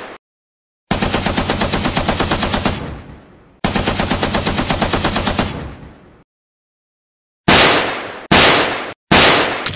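Cartoon gunfire sound effects: two long bursts of rapid machine-gun fire, each lasting a couple of seconds, then a pause and three loud single shots a little under a second apart.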